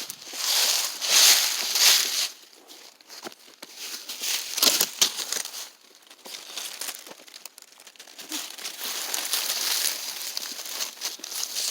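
Footsteps crunching and crinkling through dry forest-floor litter, in uneven bursts with short lulls between them.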